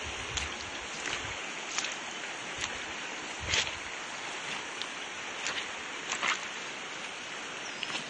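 Steady rush of flowing river water, with scattered short crunches and splashes of footsteps on wet, stony ground; the loudest comes about three and a half seconds in.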